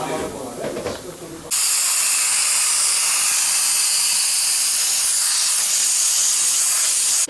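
Compressed-air blow gun in a motorcycle workshop, hissing steadily. The hiss starts suddenly about a second and a half in and cuts off abruptly at the end.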